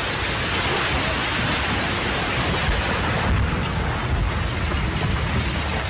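An earthquake-damaged twelve-storey concrete apartment block collapsing: a loud, continuous rumble of falling rubble and debris, its higher hiss thinning a little past halfway.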